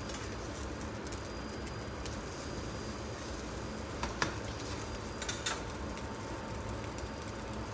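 A slice of savoury cake frying in bubbling butter and oil in a stainless steel pan: a steady sizzle, the butter beginning to brown. A few light clicks about four seconds in and again about a second later.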